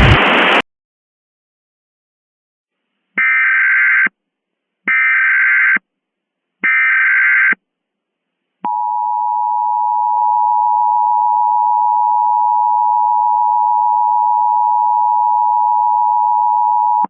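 Emergency Alert System SAME header: three short, harsh digital data bursts about a second apart. A click follows, then the EAS attention signal, a steady two-tone alarm held for about eight seconds.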